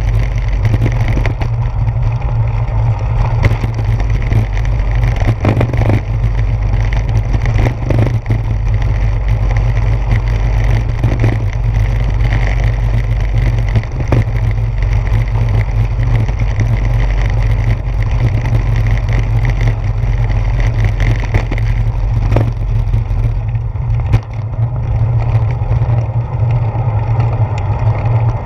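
Steady low rumble and rattle of a bicycle rolling over a brick-paved street, heard through a handlebar-mounted GoPro's housing, with frequent knocks from the bumps. About three-quarters of the way through the rattle eases as the ride moves onto smooth asphalt.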